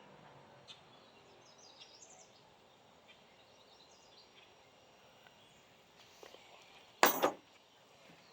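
Faint background with a few soft high chirps, then, about seven seconds in, a sharp metallic clank as a hand wrench is handled, knocking against other tools.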